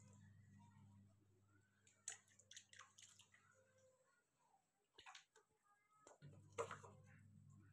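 Faint splashing and sloshing of water in a plastic basin as baby monkeys wade, lie in it and climb over the rim: a few short splashes, the loudest near the end, over a low steady hum that drops out for a couple of seconds midway.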